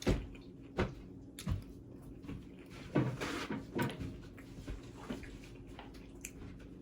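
A few soft knocks and thumps from objects being handled, with a short rustle about three seconds in, over a faint steady hum.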